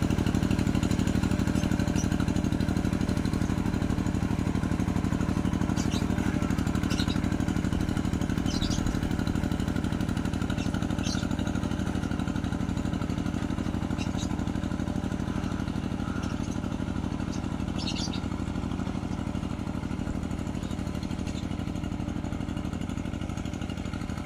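A rice-field plowing tractor's engine runs steadily under load and slowly grows fainter as it works away. A few short, high bird chirps sound over it.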